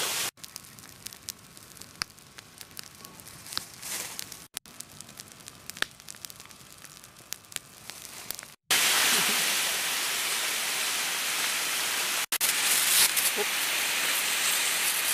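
Dry brush and branches burning, crackling with many sharp pops. After a cut at about eight and a half seconds, a fire hose nozzle sprays water with a loud, steady hiss.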